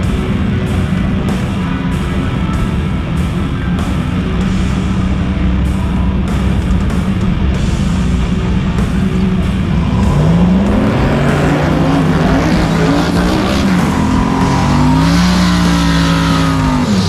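Drag race car engines running steadily, then accelerating hard about ten seconds in, the pitch climbing and dropping back several times as they shift up through the gears.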